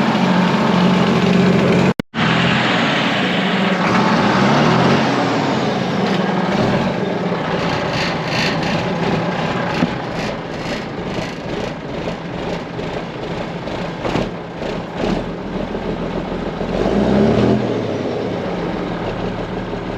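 1980 Volvo F7 lorry's straight-six diesel engine running through a newly fitted Eminox exhaust, a quiet note from the silencer. The revs rise and fall shortly after the start and again about three quarters through. The sound cuts out for a moment about two seconds in.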